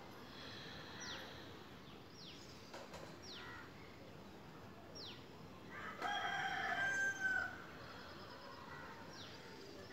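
A rooster crowing once, about six seconds in, a drawn-out call of about a second and a half. Several short, high, downward-sliding bird calls sound at intervals throughout.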